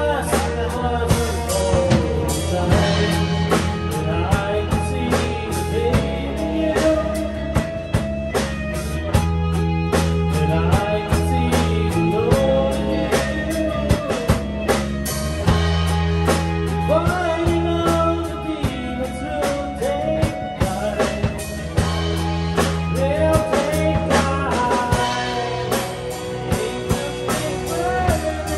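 A small band playing an instrumental blues-rock jam: two guitars, one bending notes in a lead line, over a drum kit, with held low notes that change every few seconds.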